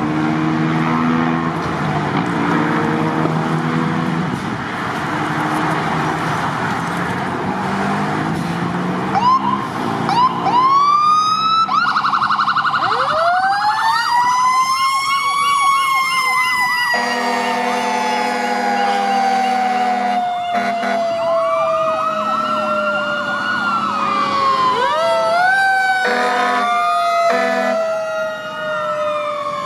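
Fire apparatus sirens and air horns. Electronic sirens wail and yelp, and a mechanical Q siren winds up to a high pitch and then coasts slowly down. Blasts of air horn come twice, in the middle and near the end.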